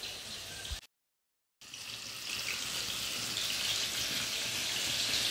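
Banana fritters (pisang goreng) frying in hot oil in a pan, a steady sizzle that starts after a short silence about a second and a half in.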